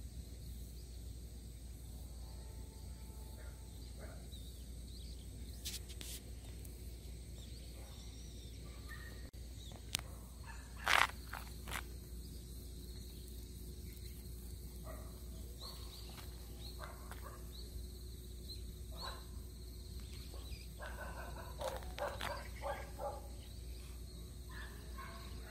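Faint rural outdoor ambience: a steady high insect drone over a low rumble, with a few short knocks and scuffs. The loudest is a sharp knock about eleven seconds in.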